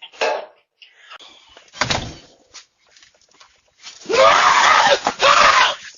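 A dull thump about two seconds in, then a person screaming loudly for nearly two seconds near the end.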